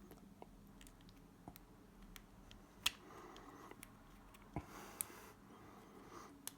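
Faint small metallic clicks and ticks of a handcuff lock being picked with a homemade tension tool, a few sharper clicks standing out about three, four and a half and five seconds in. The pick is struggling to get enough tension on the lock.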